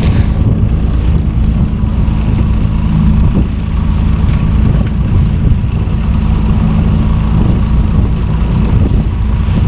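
Small fishing boat's engine running with a steady low drone.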